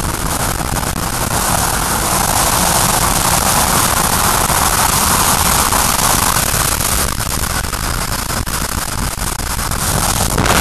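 Wind rushing over an action camera's microphone while travelling at road speed: a loud, steady rushing noise with vehicle road noise underneath.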